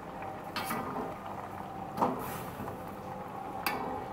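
Instant noodles boiling in water in a steel wok, with a metal spatula scraping and knocking against the wok a few times, the loudest knock about two seconds in.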